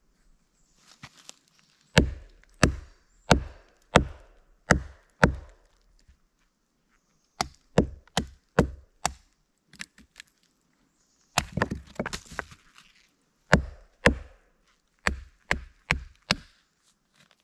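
A Hultafors OK4 Scandi bushcraft knife being batoned through a log of green wood. The baton strikes the blade's spine in sharp knocks, about one and a half a second in runs of four to six with short pauses between, along with crackling as the wood splits.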